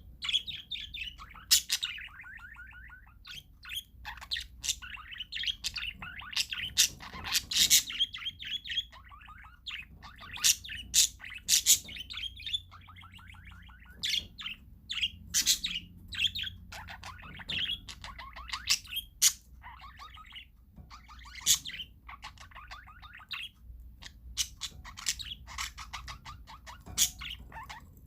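A flock of parakeets chattering in rapid warbling trills, broken every second or two by short, sharp squawks that are the loudest sounds.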